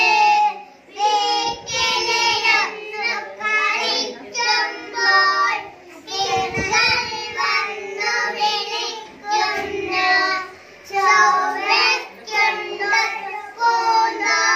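Young boys singing a song together into a microphone, phrase after phrase with short breaths between lines.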